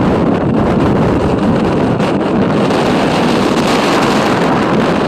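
Wind during a snowstorm blowing over the microphone: a loud, steady rushing with no letup.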